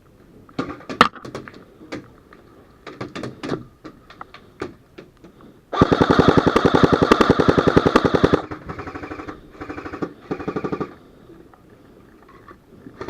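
Airsoft guns firing: scattered single shots over the first few seconds, then a long, rapid full-auto burst of about two and a half seconds, followed by three shorter, quieter bursts.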